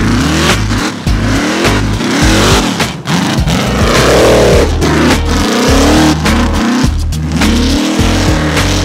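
Rock bouncer buggy's engine revving hard in repeated bursts, pitch rising and falling as it claws up a steep rocky climb, with occasional sharp knocks. A music track with a heavy bass line runs underneath.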